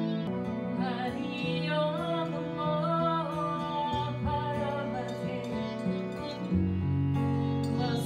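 Live kirtan music: a woman sings a gliding melody over held low bass notes that change every couple of seconds, with harmonium drone and strummed acoustic guitar.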